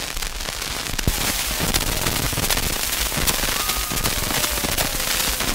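Surface noise of a Recordio home-recording disc playing on a turntable: a steady hiss with many scattered clicks and pops.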